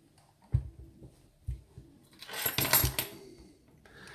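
A brass lock being handled and set in rubber-padded jaws: two soft knocks, then a second or so of metallic clinking and rattling about two seconds in.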